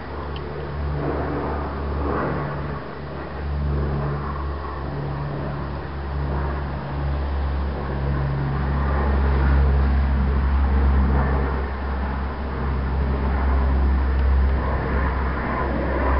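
Low, steady rumble of a motor vehicle engine running nearby, growing louder about halfway through.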